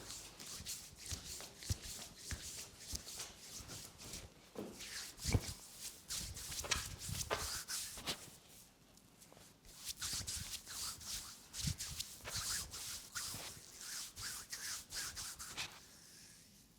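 Hands rubbing and stroking over skin during a massage: a run of quick brushing strokes with a few sharper pats among them. There is a lull partway through, and the strokes stop shortly before the end.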